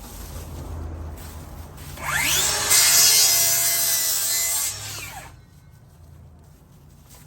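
Power saw starting up with a rising whine about two seconds in, cutting through wood for about two seconds, then winding down and stopping. The cut trims a little off the edge of a board.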